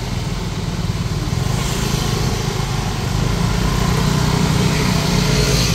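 Busy street traffic of motor scooters and a van running close by, with a strong low rumble that grows slightly louder.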